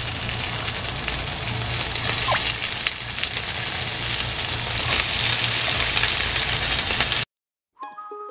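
Chopped napa cabbage sizzling in an oiled frying pan on a gas burner, a steady frying hiss with light knife strokes on a wooden cutting board. The sizzle cuts off suddenly about seven seconds in, and a light plucked-string tune starts just before the end.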